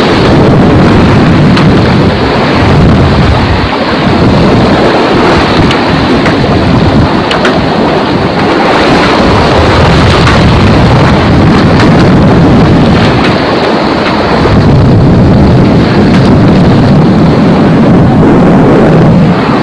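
Wind buffeting the microphone in loud, gusting rumbles over the rush of water in a sailboat's wake.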